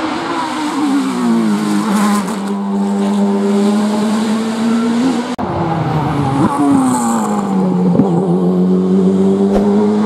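Race car engine passing at speed: its note drops in pitch as it goes by, then holds steady as the car pulls away. The sound breaks off suddenly about halfway through and a second car passes the same way.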